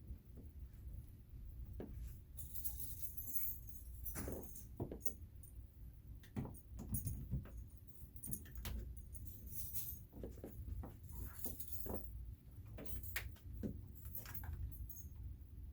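Irregular clicks, taps and light metallic jingling from small parts and pieces being handled during assembly of a laser engraver.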